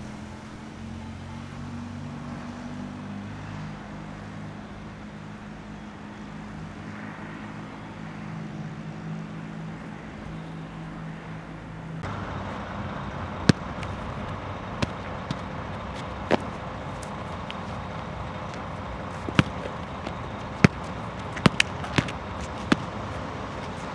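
A low, steady hum of several held tones, then, after a cut about halfway through, a rubber ball being kicked, volleyed and bouncing on a concrete court: about ten sharp, separate smacks spread over the last twelve seconds.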